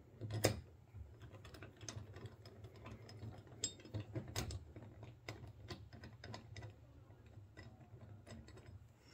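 Light, irregular clicks and taps of small metal bolts and bracket parts being handled and fitted together by hand, the sharpest about half a second in and about four and a half seconds in.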